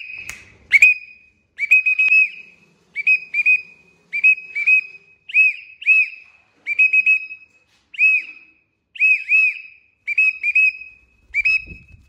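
A person whistling to call a young Alexandrine parakeet to the hand: short high whistle notes in groups of one to three, each note rising and falling, repeated about once a second.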